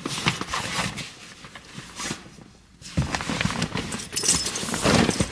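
Bags being loaded into a car's trunk: fabric bags and straps rustling, with scattered knocks and bumps, briefly quieter about halfway through.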